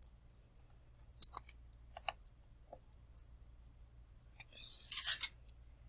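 Faint clicks and taps of hands handling a cardboard tube and aluminium foil, with a brief crinkly rustle near the end.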